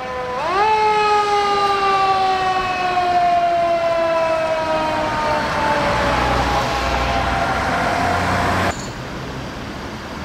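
Japanese fire engine's wailing siren. It swoops up about half a second in, then glides slowly down in pitch over several seconds. Heavy engine and road noise swells under it before the sound cuts off suddenly near the end, leaving low traffic noise.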